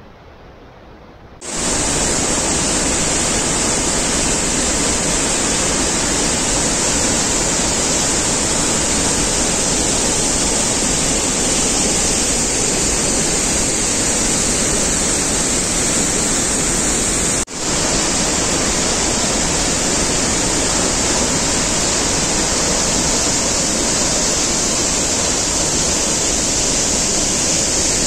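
Steady, loud rush of a large waterfall in heavy flow. It comes in about one and a half seconds in and breaks off for an instant about halfway through.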